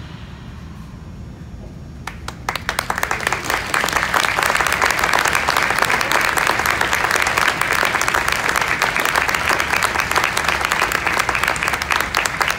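Audience applause at the end of a concert band performance: a short hush, then clapping breaks out about two seconds in and swells into steady applause.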